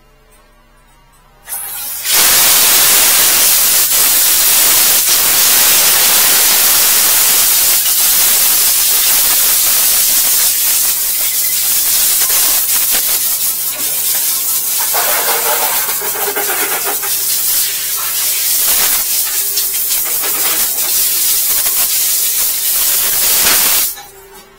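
High-pressure drain jetter spraying water from its hose nozzle inside a clogged toilet drain: a loud, steady hiss that starts abruptly about two seconds in and cuts off suddenly near the end.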